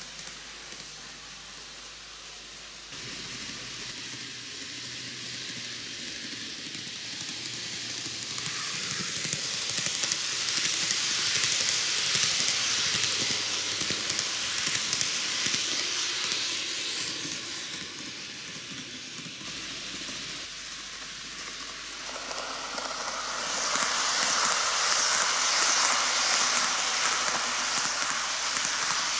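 TOMIX N-gauge Kintetsu 80000 series Hinotori eight-car model train running on its track: a steady hissing running noise from the wheels on the rails and the motor car. It grows louder as the train comes near, eases, then swells again as the cars pass close by.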